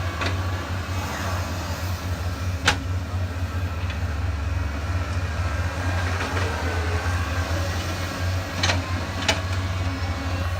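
Heavy diesel engine running steadily at a constant speed, with a few sharp metallic clanks, the loudest about a quarter of the way in and two more close together near the end.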